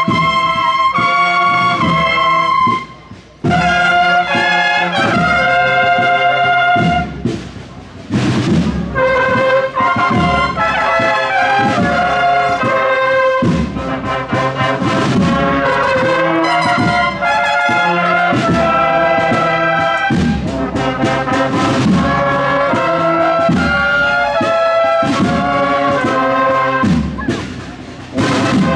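Brass band playing a procession march, trumpets and trombones holding notes in phrases, with short breaks about three, eight and twenty-eight seconds in.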